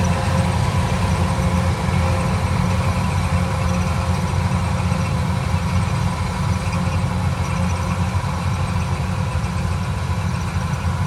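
An engine running steadily: a loud, even low drone that holds the same pitch throughout.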